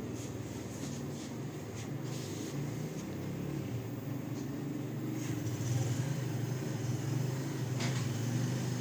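A motorcycle engine running steadily, a little louder about five seconds in, with a few sharp clicks over it.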